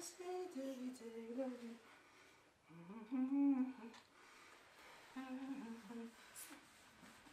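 A woman humming a wavering melody in three short phrases with pauses between them, the middle phrase the loudest.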